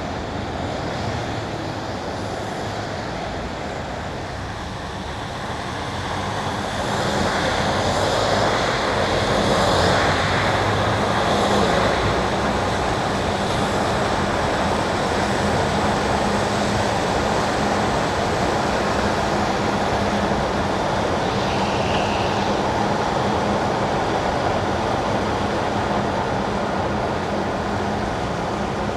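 Car driving on wet asphalt: a steady hiss of tyres on the wet road, growing louder about seven seconds in, over a low steady hum.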